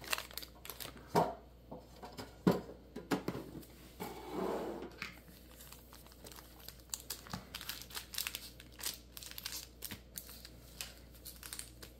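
Foil booster-pack wrappers crinkling and crackling as a stack of packs is handled and laid out one by one. There are a few sharp knocks in the first three seconds.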